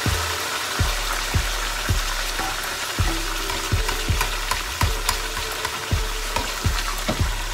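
Barramundi frying in hot oil in a pan: a steady sizzle with frequent sharp crackles and pops, about two a second.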